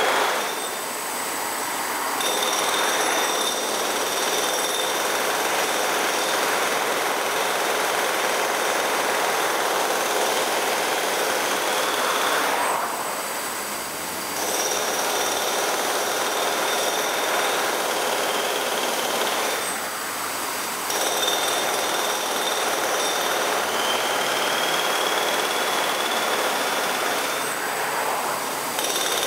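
Jackhammer running in long steady runs, a dense clatter with a high steady tone riding on it; it drops off briefly three times, about 12, 20 and 27 seconds in.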